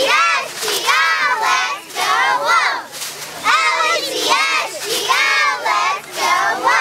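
A squad of young cheerleaders shouting a cheer in unison, high voices in short rhythmic chanted bursts.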